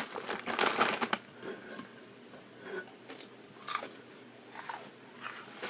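Close-miked eating: a burst of crunching bites, then single crunches and chewing at intervals.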